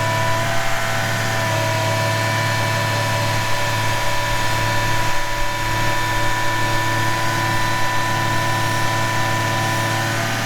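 Excavator engine running steadily at idle, with a steady hum and whine.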